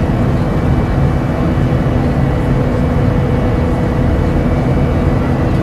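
Cabin noise aboard an Airbus A350 with Rolls-Royce Trent XWB engines: a steady, loud rumble of engines and airflow with a few steady hums over it.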